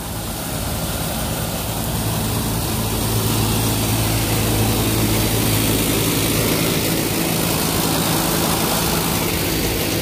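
Three York microchannel condensing units running for cooling: the condenser fans blow with a steady rushing sound over a steady electric hum, getting a little louder over the first couple of seconds. Their condenser coils are blanketed with debris, which the technician takes to mean they are running at very high head pressure.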